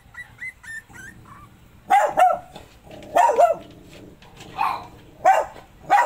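Dog barking: about seven short, sharp barks, mostly in quick pairs, starting about two seconds in. Faint high-pitched squeaks come just before them.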